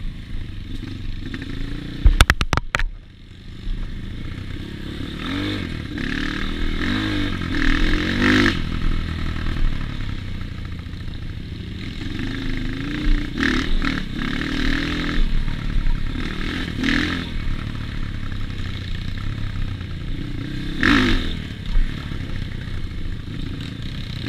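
Off-road trail motorcycle engine running and revving up and down in repeated bursts while riding a rough trail. There is a quick cluster of sharp knocks about two seconds in, and scraping and clattering throughout.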